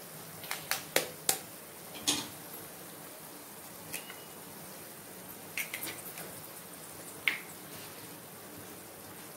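Egg and chopped vegetables frying in hot oil in a nonstick wok: a steady sizzle broken by sharp pops and crackles of spitting oil, several in a cluster near the start and a loud single pop about seven seconds in.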